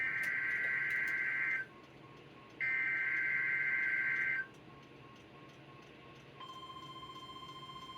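NOAA Weather Radio Required Weekly Test: two SAME (Specific Area Message Encoding) header bursts, harsh two-tone digital data screeches of nearly two seconds each, about a second apart. About six and a half seconds in, the steady 1050 Hz warning alarm tone starts and holds.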